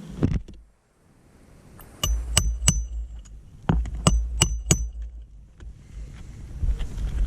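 A series of sharp clinks with a brief high ring, about seven in two quick groups, over a low uneven rumble.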